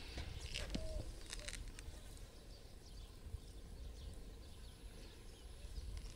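Faint outdoor background: a steady low rumble, with a few light clicks and a short chirp within the first second and a half.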